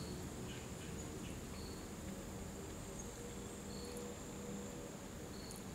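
Steady, high-pitched insect drone, with a few short, faint chirps every second or two.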